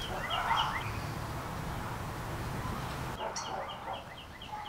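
A bird chirping in two quick runs of short, high, repeated notes, one at the start and one near the end, over steady outdoor background noise.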